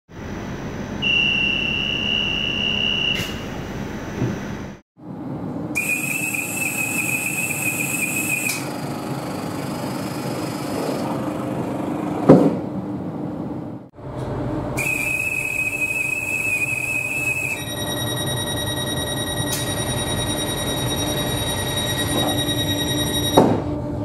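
Dutch railway conductor's departure whistle blown three times, each a steady shrill note of two to three seconds. After the second and third whistles, the train's door-closing warning beeper sounds, rapidly beeping in the last case, and the doors of an NS VIRM double-deck train shut with a thud.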